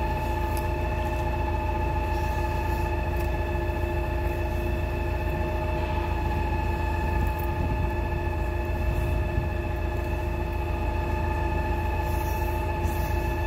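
Machinery running steadily: a constant low rumble under a steady hum of several pitches, with no change in speed or load.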